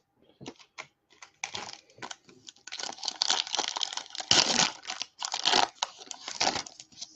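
Foil wrapper of a Topps Chrome baseball card pack being torn open and crinkled by hand. A few scattered crackles build, from about a second and a half in, to dense, loud crinkling.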